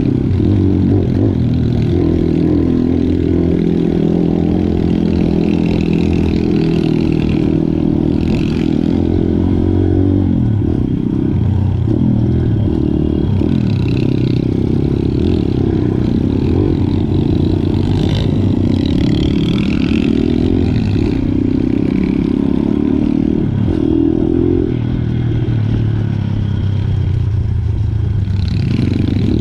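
Small single-cylinder motorcycle engine ridden along a bumpy dirt trail, its pitch rising and falling as the throttle opens and closes, with rattling from the bike over the rough ground.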